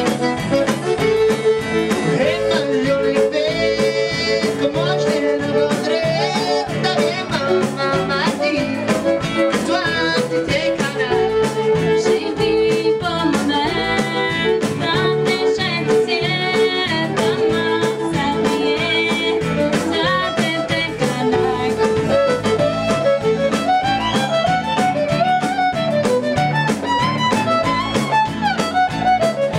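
Cajun band playing live: fiddle and Cajun button accordion carrying the tune over guitars and drums keeping a steady beat.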